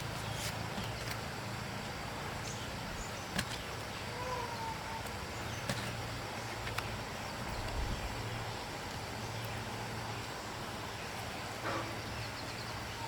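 Steady low hum under an even background noise, with a few scattered sharp clicks, the loudest about three and a half and six seconds in.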